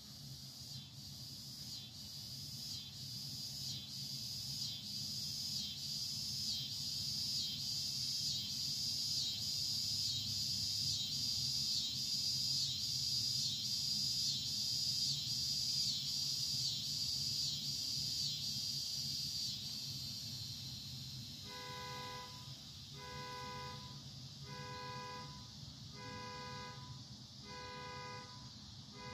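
Outdoor background sound: a high chirping pulses steadily about one and a half times a second, typical of insects, over a low steady rumble, and stops about twenty seconds in. Near the end a pitched, horn-like beep sounds six times, evenly spaced about a second and a half apart.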